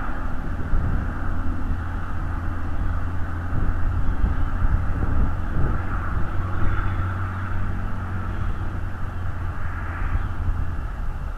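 A distant engine's steady low rumble, dying away near the end.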